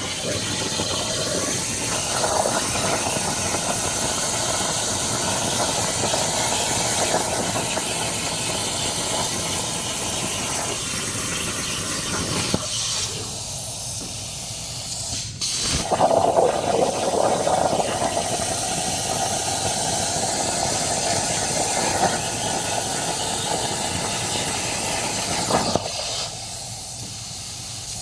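Plasma cutter arc hissing steadily as it cuts through a steel saw blade, with a brief dropout about fifteen seconds in.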